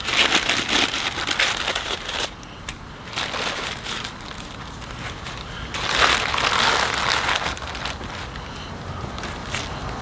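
Paper meat wrapping crinkling and crackling as it is pulled open and stripped off a pork tenderloin by hand. It is loudest for the first two seconds and again about six seconds in.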